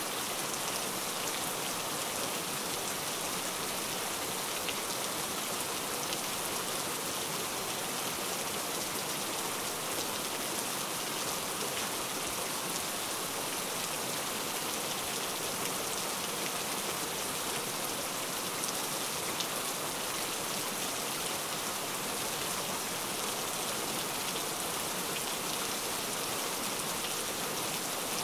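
Steady rain, an even unbroken hiss with faint scattered drop ticks.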